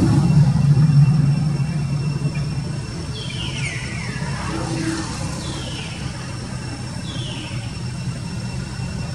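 Low, steady engine-like rumble, like an idling vehicle, loudest in the first couple of seconds and then easing off. Four short high chirps, each falling in pitch, come between about three and seven seconds in.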